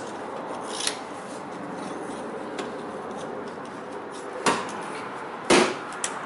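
Metal clicks and clunks from a T-handle spark plug wrench as it is turned and its sliding bar is repositioned in the spark plug well: a few sharp knocks, the loudest about five and a half seconds in.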